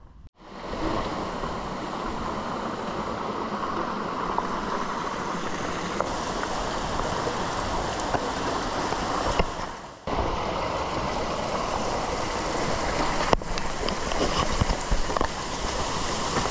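Meltwater rushing through a channel in a glacier ice cave, a steady dense rushing that dips briefly about ten seconds in.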